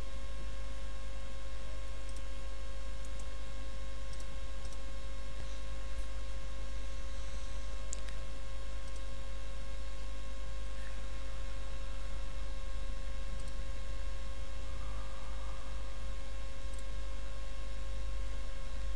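Steady electrical mains hum with a few faint clicks.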